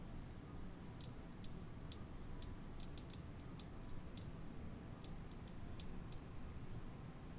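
Faint, sharp ticks and crackles, about two a second and not quite evenly spaced, from a hot soldering iron tip on flux-covered pads of an Apple Watch LCD flex cable, over a low steady hum.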